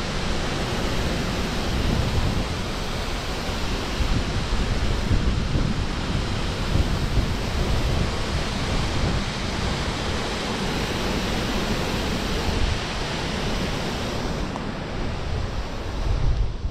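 Water pouring over the lock's spillway gates and churning in the basin below: a steady rushing noise, with wind buffeting the microphone. The higher hiss of the falling water thins a little near the end.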